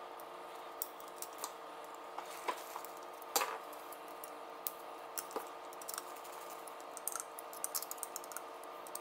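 Scattered light clicks and taps of a screwdriver and small screws against a drone frame as its arm screws are driven in, over a faint steady hum.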